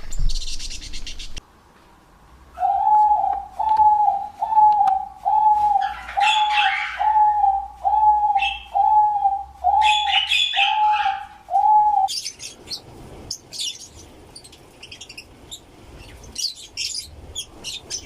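Birds calling: one bird repeats a single clear whistled note about once a second, eleven times, with a few higher chirps over it; then, about twelve seconds in, a rapid run of high-pitched chirping takes over.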